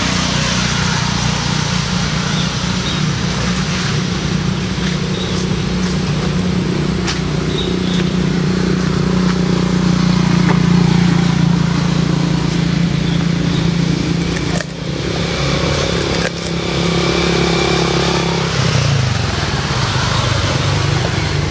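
Small motorcycle engine idling steadily, its pitch dropping slightly near the end, with two brief knocks a little past the middle.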